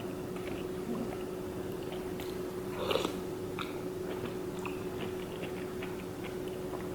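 A person chewing and biting fried takeout food close to the microphone, with small crunches and wet mouth clicks, one louder bite about three seconds in. A steady low hum runs underneath.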